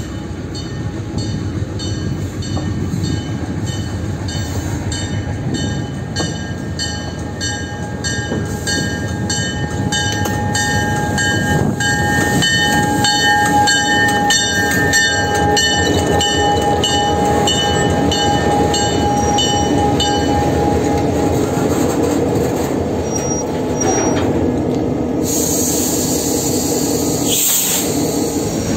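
EMD GP38-2 diesel locomotive (KCSM 2051) rumbling past close by, its bell ringing in an even repeating clang for the first twenty seconds or so, with a thin steady squeal partway through. Covered hopper cars then roll by with wheel and rail noise, and a loud hiss rises near the end.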